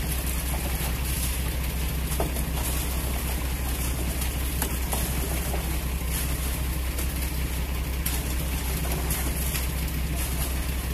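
Concrete mixer truck's diesel engine running steadily with an even low hum, while shovels and rakes scrape through wet concrete.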